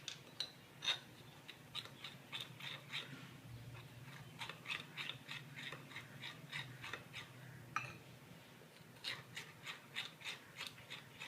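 Spatula clicking and scraping against the cup while dry ingredients are folded into wet to make cake batter. The quick taps come at about three or four a second, in runs with short pauses between them.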